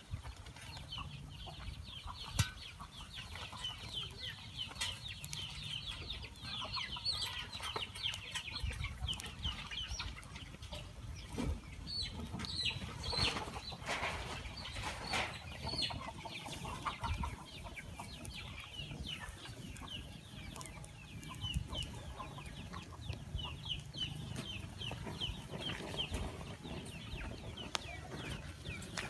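Chickens peeping and clucking in rapid runs of short, high, falling peeps, with the crackle of a dry-grass fire burning under a metal grill grate.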